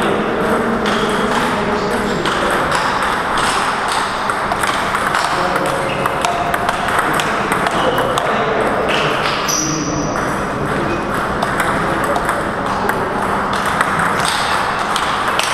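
Table tennis rallies: the ball clicking off the bats and bouncing on the table in quick exchanges, over the background voices and noise of a busy hall.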